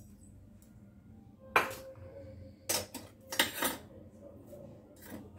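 Kitchen utensils clinking and clattering. A sharp clink about a second and a half in rings briefly, and three more clatters follow over the next two seconds.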